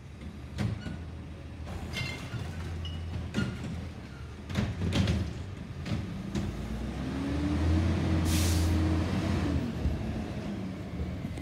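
Diesel engine of a Waste Management front-loader garbage truck running, with scattered clanks in the first half. About two-thirds of the way through the engine revs up and back down, and a short air-brake hiss comes near the top of the rev.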